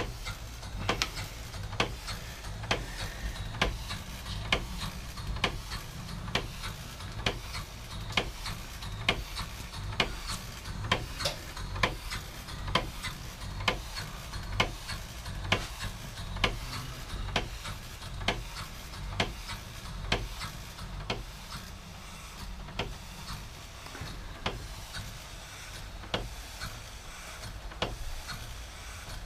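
Model Southworth steam water pump running, ticking in an even rhythm about every two-thirds of a second over a low steady rumble.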